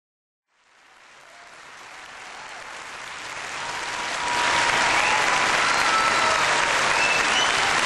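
Audience applauding. It fades in from silence about half a second in, swells until about four and a half seconds, then holds steady.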